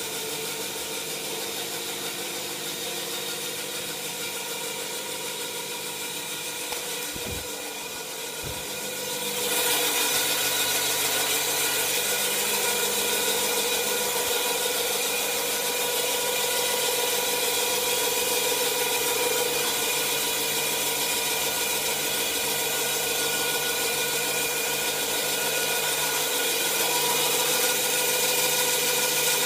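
Washing machine running with a steady hum made of several tones. Just before it gets louder and hissier, about nine seconds in, come two brief low knocks.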